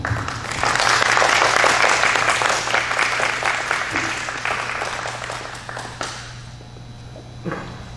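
Audience applauding: the clapping swells within the first second, holds, then thins out and dies away about six seconds in.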